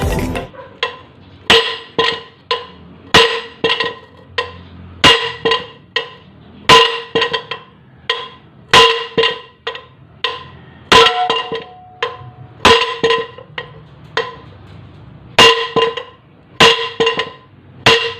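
A large hammer striking the steel yoke of a propeller shaft's universal (cross) joint again and again, each blow ringing, in quick groups of two or three. The blows drive the U-joint's bearing cap out of the yoke.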